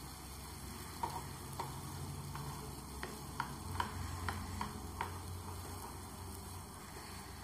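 Spatula stirring soft boiled-potato and pea samosa filling in a non-stick frying pan, with a string of light clicks as it knocks against the pan between about one and five seconds in. A faint steady hum runs underneath.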